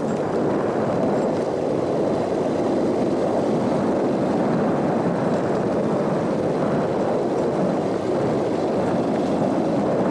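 A vehicle driving steadily along a rough dirt road: engine and road noise as a continuous, even rumble.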